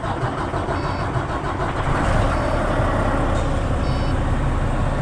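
Farm truck engine just started and running steadily, settling after firing up, with faint high beeps repeating about every second and a half.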